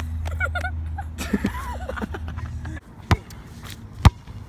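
A basketball bounced on asphalt: two sharp, loud hits about a second apart in the second half. Before them is a steady low rumble with faint voices.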